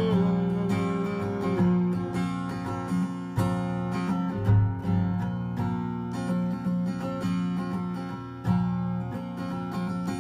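Acoustic guitar strummed in an instrumental break between sung lines. The singer's last held note fades out about a second and a half in, leaving the strummed chords alone.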